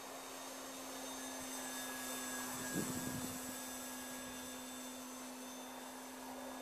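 RC model airplane's motor and propeller flying overhead: a steady hum with a faint high whine, swelling slightly and easing off. A brief low thump about three seconds in.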